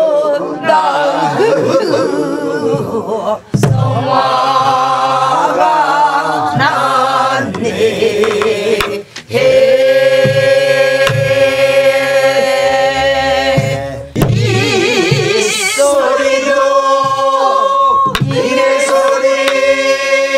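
A group of voices sings a Korean Namdo folk song together in long held phrases with a heavy wavering vibrato, pausing briefly for breath between phrases. A few sharp knocks sound along with the singing.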